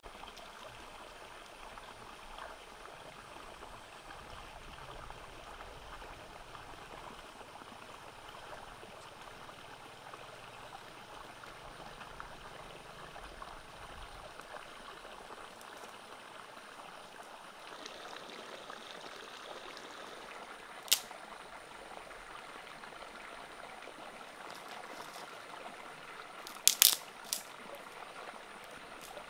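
Shallow stream running over rocks: a steady babble of water. A sharp knock cuts through once, about two-thirds of the way in. A quick cluster of several more comes near the end.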